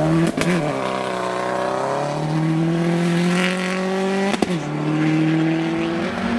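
Subaru Impreza rally car's turbocharged flat-four engine accelerating hard on gravel, its note climbing steadily. A sharp crack comes at each of two upshifts, about half a second in and about four and a half seconds in, each followed by the pitch dropping and climbing again.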